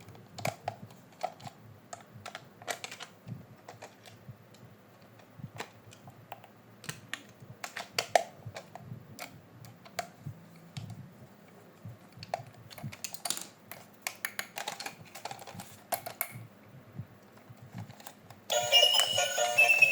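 Irregular light clicks and taps of toy packaging and plastic parts being handled. About a second and a half before the end, music with bell-like tones starts suddenly and is louder than the handling.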